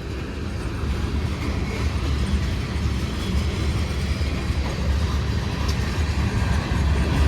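A CSX freight train's cars, mostly gondolas, rolling past close by: a steady low rumble of wheels on rail.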